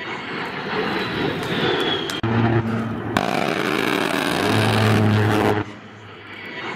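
Intro sound effect: a loud rushing noise like a passing vehicle or aircraft, with a low engine-like drone swelling in twice and a sharp click in the middle. It drops away abruptly about five and a half seconds in.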